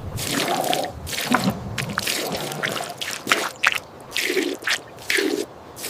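Water splashing and dripping in irregular short bursts.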